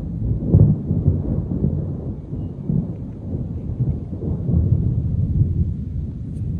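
Rolling thunder: a low rumble that swells in uneven waves and slowly dies away.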